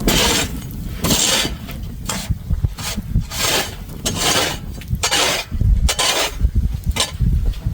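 Snow shovel scraping along the ground as snow is pushed, in repeated rasping strokes about once a second with dull low thuds.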